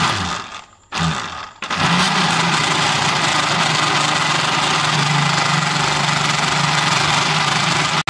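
Electric mixer-grinder jug of mint, coriander, green chillies and garlic being run: two short pulses, then a steady run of about six seconds that cuts off suddenly. Without water the mixture is too thick to grind properly.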